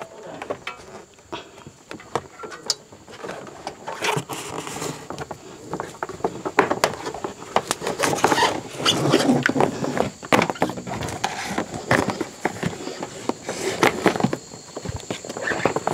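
Footsteps scuffing and knocking up a steep, rough hillside path, with irregular clicks and rustling of carried gear.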